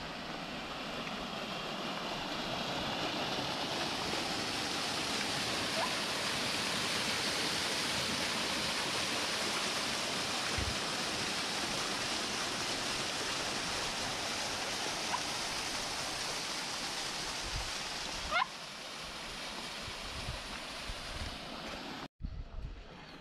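Small waterfall splashing steadily down a rock face, getting louder over the first few seconds. Near the end it cuts off abruptly to a quieter open-air background.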